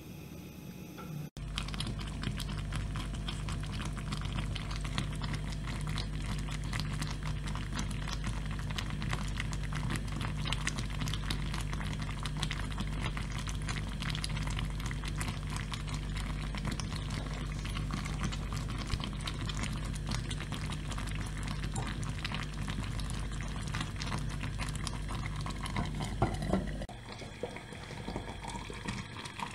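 Thick shiro stew bubbling and popping in a clay pot, a dense crackle of bursting bubbles over a steady low hum, starting about a second in. Near the end the clay lid goes on with a knock, and the bubbling turns quieter and muffled.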